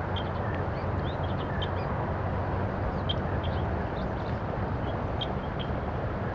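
Steady rush of river water, with short, faint bird chirps scattered over it.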